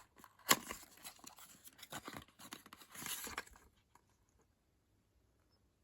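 Packaging being handled: crinkling, rustling and tearing of paper or plastic wrap, with a sharp snap about half a second in. The handling stops after about three and a half seconds.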